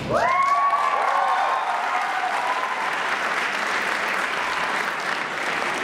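Audience applauding, with high-pitched cheering shrieks from several voices in the first second or so, then steady clapping.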